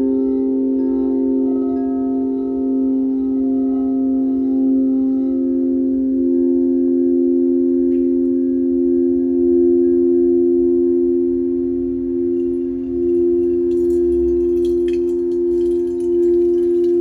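Crystal singing bowls played with mallets, two steady overlapping tones ringing on, the higher one pulsing slowly. A little over three-quarters of the way through, the light splash and trickle of poured water joins in.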